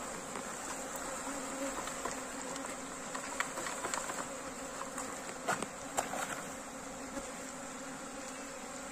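Swarm of honeybees buzzing steadily, stirred up and defensive as their cluster is disturbed, with a few short clicks in the middle.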